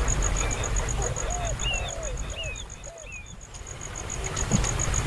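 A baby bird cheeping: about six short chirps, each rising then falling in pitch, roughly two a second, stopping about three seconds in. An insect trills in a fast, even pulse throughout, over a low rumble.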